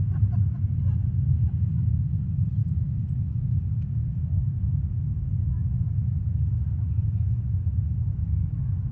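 Deep, steady rumble of a rocket's engines during launch, heard from far off.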